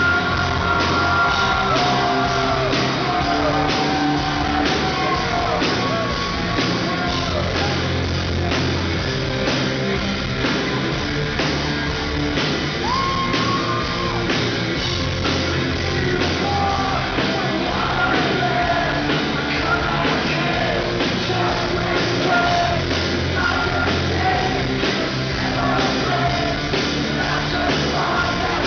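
A rock band playing live in a large hall: a male singer's voice over electric guitar and drums, recorded loud from the crowd.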